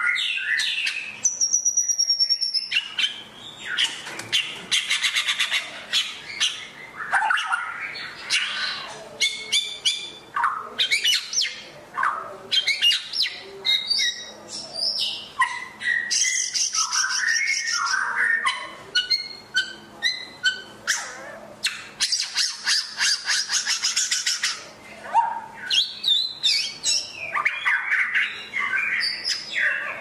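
White-rumped shama singing: a varied, continuous stream of clear whistles, fast trills and chattering notes in short phrases, with two long, dense trilling passages.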